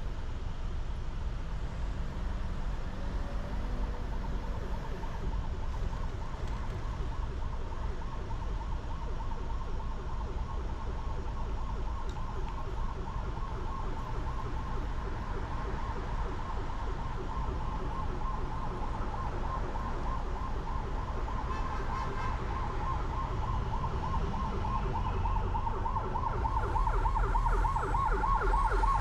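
An emergency vehicle's siren with a fast, regular warble, growing louder over a steady low rumble of traffic.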